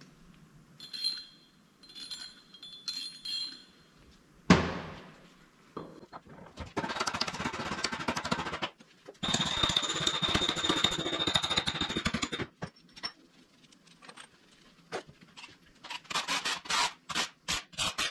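Metal parts of a ZF 16 S 221 truck gearbox being handled during assembly on a workbench: a few light metal clinks, one sharp loud clank about four seconds in, then two long stretches of rattling noise, and a quick run of clicks near the end.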